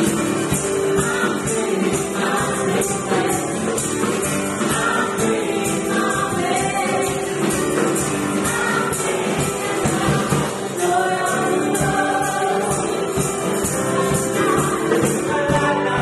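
Worship song with group singing over a tambourine keeping a steady, even beat.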